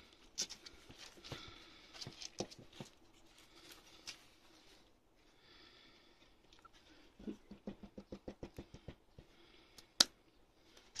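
A Papillon puppy playing with and nibbling a person's hand on a cloth surface: soft rustling and scuffing with scattered light clicks, a quick run of soft taps about six a second around two-thirds of the way through, and one sharp click near the end.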